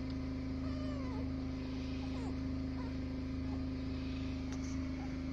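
A steady low hum runs throughout. Over it, newborn American Bully puppies give a few faint squeaks while nursing: one about a second in and a couple more between two and three seconds in.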